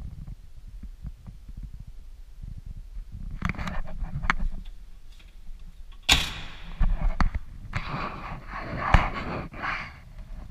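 A car door slams shut about six seconds in, sharp and metallic, on a 1992 Lada VAZ 21053. It is followed by rustling and a click as the boot lid is opened. Low thumps and clicks of handling come before it.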